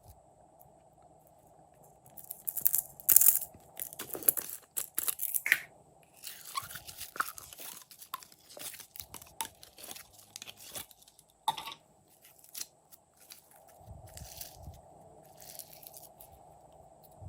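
Glossy slime being squeezed and kneaded by hand, starting about two seconds in with dense wet clicks and crackles, one sharper snap about two thirds of the way through, then softer squishing.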